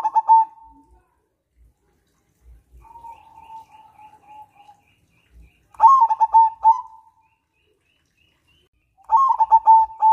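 Zebra dove (perkutut) singing: three loud phrases of rapid, stuttering coo notes, one at the start, one about six seconds in and one about nine seconds in, with a softer drawn-out trill between the first two.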